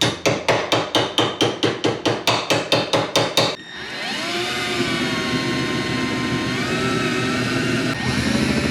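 Rapid hammer blows on thin sheet metal, about five a second, as the metal is hammered into a bend. The blows stop after about three and a half seconds; then a power tool's motor winds up and runs steadily.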